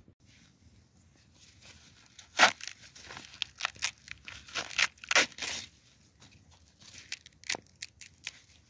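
Fresh corn husks being torn off the cob by hand: crackly rustling with several sharp rips, the loudest about two and a half and five seconds in.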